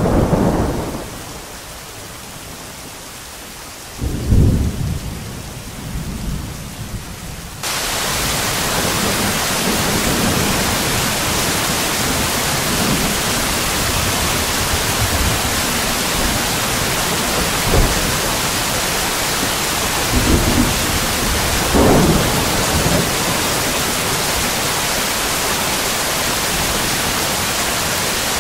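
Thunderstorm: a thunderclap right at the start and another rumble about four seconds in, over light rain. About eight seconds in, heavy steady rain suddenly comes in, with more thunder rumbling under it.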